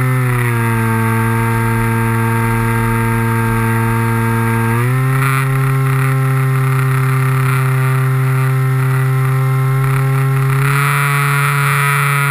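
Electric motor and propeller of a model airplane running in flight with a steady whine. The pitch drops shortly after the start, rises again about five seconds in and steps up a little near the end as the throttle changes.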